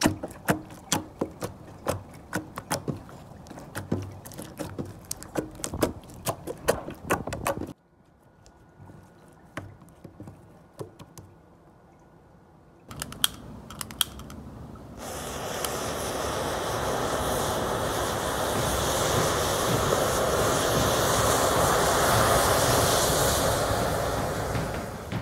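Hands squeezing and kneading slime, a quick run of sticky clicks and pops. After a quiet few seconds, a large bundle of matches burns with a steady rushing noise of flame that swells and eases off near the end.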